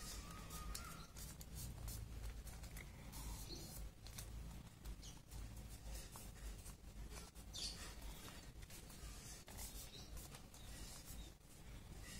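Thin origami paper rustling and crinkling in the hands as it is folded and creased, a string of short, irregular crackles over a faint low hum.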